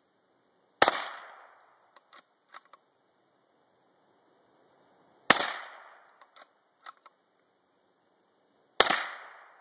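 Three single gunshots a few seconds apart, each a sharp crack with a short echoing tail, and a few faint clicks in between.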